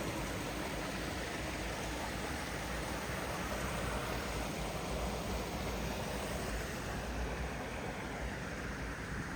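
Small waterfall rushing with a steady, even noise of falling water.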